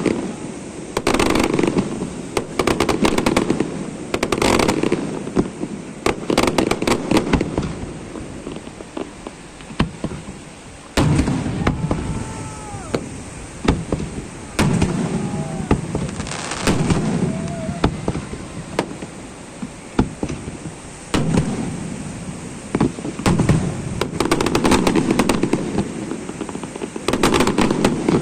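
Fireworks display: aerial shells going off in a continuous barrage of sharp bangs, coming in clusters, with crackling and a low rumble between them.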